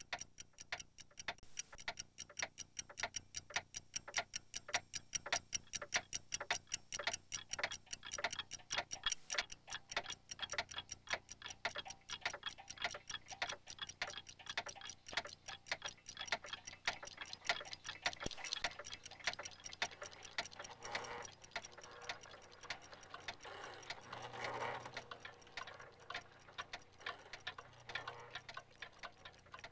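Clock ticking in a fast, even rhythm of sharp ticks.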